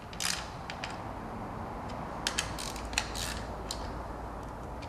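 Hand ratchet clicking in short, irregular spells as a socket runs down the 10 mm bolts holding the ignition coils, snugged by feel to about 7 foot-pounds rather than with a torque wrench.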